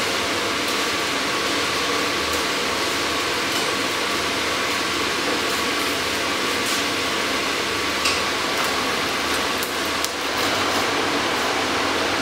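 Steady rushing of a forge blower feeding the fire, with a few scattered metal clinks and knocks of tongs and tools on the hot workpiece and anvil, the sharpest about eight seconds in and another about ten seconds in.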